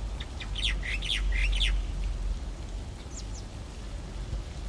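A bird calling: a quick run of short, falling chirps for about a second and a half near the start, then a couple of faint higher chirps in the middle, over the steady patter of rain.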